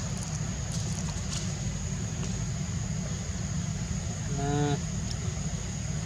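Young macaque giving one short call, about half a second long, a little past two-thirds of the way through, over a steady low rumble and a thin steady high whine.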